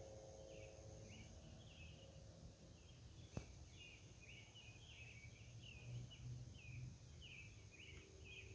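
Faint outdoor night chorus: short repeated chirps, about two a second, over a low steady hum, with one sharp click about three and a half seconds in.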